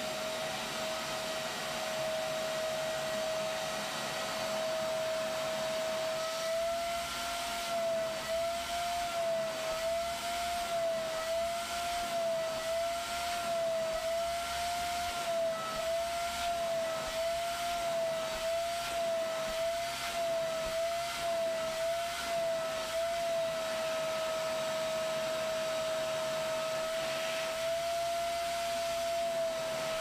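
Wap GTW12 wet-and-dry vacuum's motor running with a steady whine, used as a carpet extractor to suck rinse water out of an upholstered bed base. From about six seconds in, its pitch wavers up and down about once a second for some fifteen seconds while the nozzle is worked over the fabric, then steadies again.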